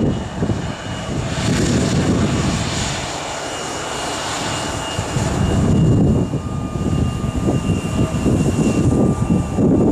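Airliner's engines running loud as the plane passes: a heavy rumble with a thin steady whine above it, joined by a lower whine about six seconds in.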